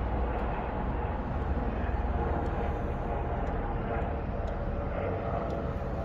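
Outdoor ambience: a steady low rumble, with faint voices in the background.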